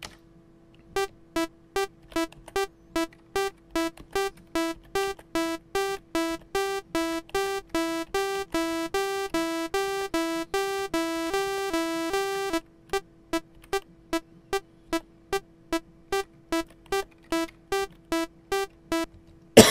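Commodore 64 SID chip playing a sawtooth 'piano' instrument on the note E4, repeated in short plucked notes about twice a second. Midway the notes lengthen until they nearly run together, then go short again as the instrument's gate timeout is adjusted. It doesn't really sound like a piano.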